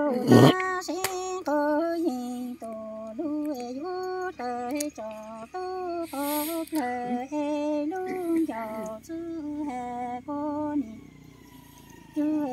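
A woman singing unaccompanied in short phrases of held notes that step up and down in pitch, breaking off about eleven seconds in and starting again just at the end.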